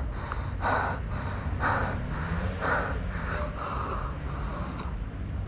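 A rider panting hard from exertion, about one heavy breath a second, over a low steady rumble.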